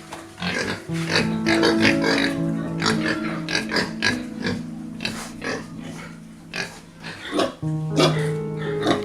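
Background music with long held notes, with the sounds of pigs heard over it.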